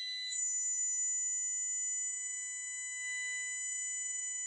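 Steady test tone from the Tecsun 2P3 AM radio kit's speaker as it picks up a 600 kHz test signal during alignment, with a high whine joining about a third of a second in and faint wavering whistles underneath.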